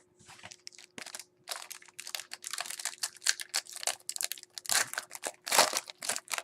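Trading-card pack wrapper being torn open and crinkled: an irregular run of crinkling and rustling that starts about a second in and grows louder toward the end.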